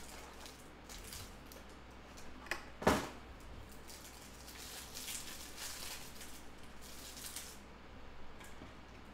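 A cardboard trading card box and its plastic-wrapped pack of basketball cards being handled and opened: irregular crinkling and rustling of cardboard and plastic wrapper, with a sharp tap about three seconds in.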